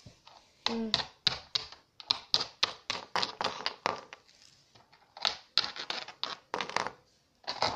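Littlest Pet Shop plastic figurines tapped again and again on the floor as they are hopped along, a quick, irregular run of clicks that pauses for about a second midway.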